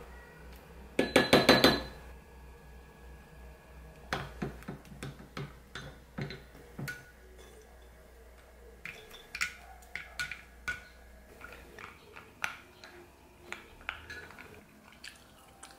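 A wooden spoon tapping on a glass jar in a quick run of about six sharp clicks about a second in. Then come scattered light clinks and scrapes of the spoon against a ceramic mug while yogurt is stirred.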